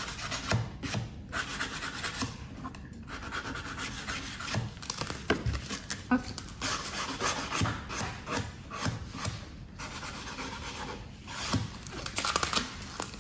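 Sandpaper rubbed back and forth along the edge of a copper etching plate: a rasping scrape in repeated strokes with short pauses, smoothing the sharp edge.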